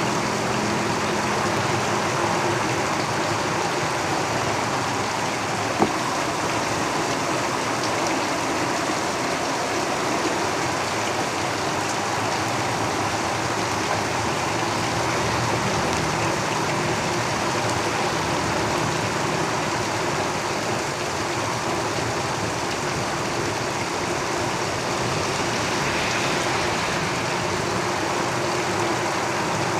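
Heavy rain drumming steadily on a tin roof, with the low rumble of road traffic passing, strongest near the start and end. A single sharp tick about six seconds in.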